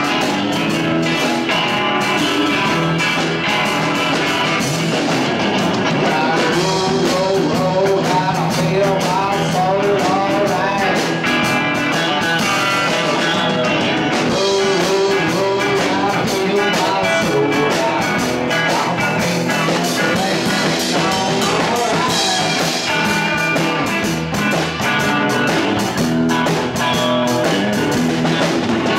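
Live band playing, with guitar and a drum kit.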